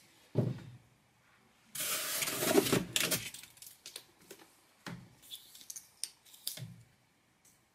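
Handling noise as a plastic drone remote controller is pulled out of its foam case. There is a rustling scrape about two seconds in, then scattered light clicks and knocks, with a dull thump near the start and another near the end.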